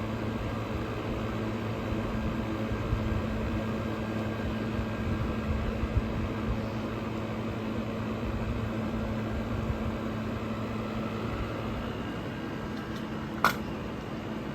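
Vintage GE Series 1 Thinline room air conditioner running: a steady compressor hum under the even rush of its fan. A single sharp click near the end.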